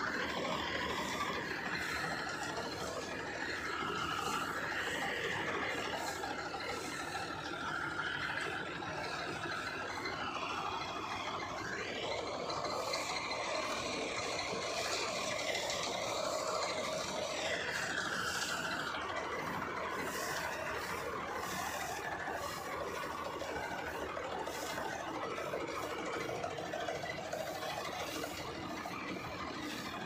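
Combine harvester running as it cuts and threshes standing rice: a steady engine and rattling machinery, with a higher whine that drifts up and down in pitch.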